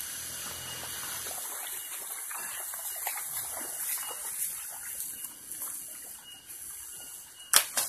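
Shallow stream running over a stony riverbed: a steady hiss of flowing water, with one sharp knock near the end.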